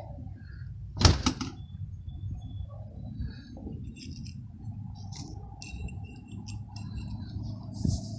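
Metal tools and parts being handled in a workshop, with one sharp metallic knock about a second in and small clinks after it.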